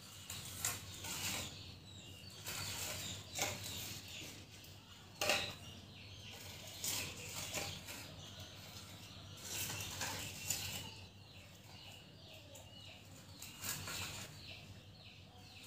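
Kittens feeding from small glass cups on a tiled floor: irregular clicks, taps and scrapes of mouths and cups, with a sharper knock about five seconds in.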